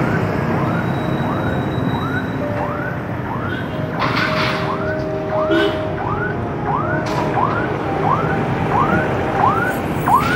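A short rising squeak repeating at an even pace, about twice a second, in time with pedalling: a squeaking bicycle, over steady street traffic noise.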